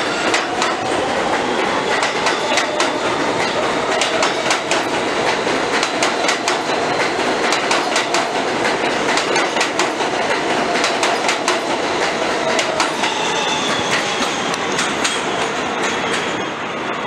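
Subway train pulling out close by and picking up speed. Its wheels click steadily over the rail joints under a rising motor whine, and the sound eases off near the end as the last cars go by.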